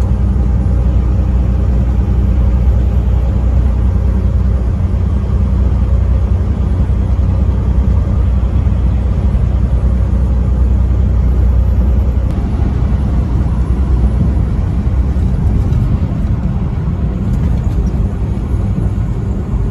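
Truck engine and road noise while driving: a steady, loud low rumble that holds even throughout.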